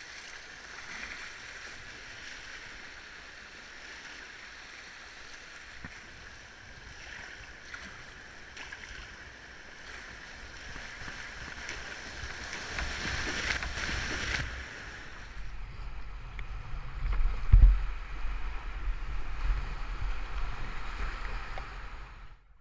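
Rushing whitewater of river rapids heard from a packraft running them. The rush swells for a couple of seconds about two-thirds of the way through. Low rumbling and one sharp thump follow, then the sound cuts off suddenly.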